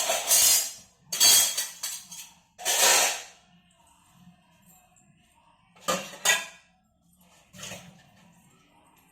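Hard objects clattering and clinking in about six loud bursts, with quiet gaps in between.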